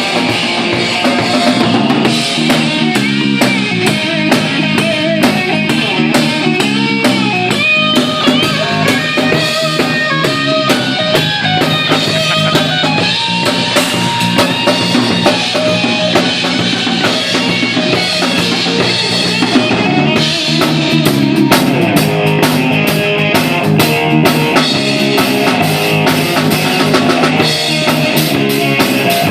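Band playing a rock song on drum kit and guitar, drums keeping a steady beat throughout.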